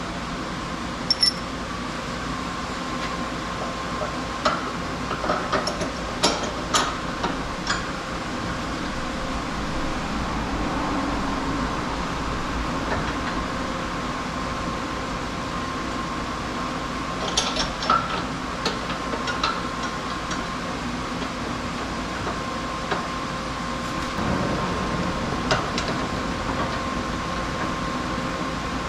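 Steady machine hum with a constant tone, broken by scattered light clicks and clinks: one about a second in, a cluster a few seconds later, another past the middle, and one more near the end. These are typical of workshop sounds while tools and parts are handled during a car repair.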